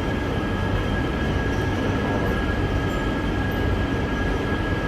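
Steady running noise of workshop machinery: an even hum with a constant thin high whine, with no change in speed or load.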